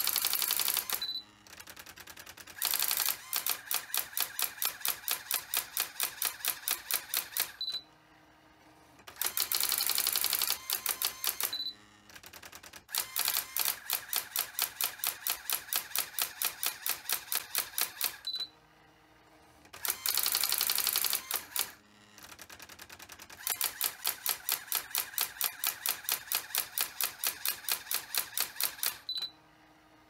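Brother electronic daisy wheel typewriter printing ASCII art: runs of rapid, evenly spaced daisy-wheel strikes, several a second. Every few seconds the runs are broken by a short pause with a brief hum as the carriage returns and the paper advances a line.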